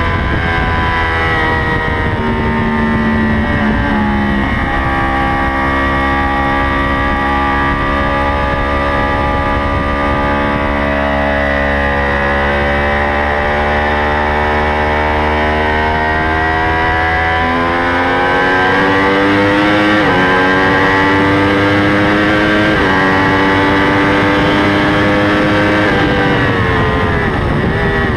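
Superbike engine heard from onboard at full race pace, its pitch climbing as it accelerates and stepping at each upshift down the straight. Near the end the revs fall and waver as the rider brakes and downshifts.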